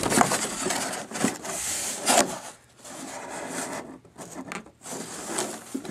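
Cardboard box and plastic packaging being handled by hand: irregular rubbing and scraping in bursts, with short pauses.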